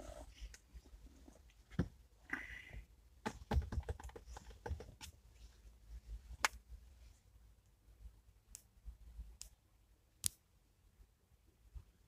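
Fingers tapping and handling a smartphone: faint, irregular clicks and knocks, with a brief rustle about two and a half seconds in.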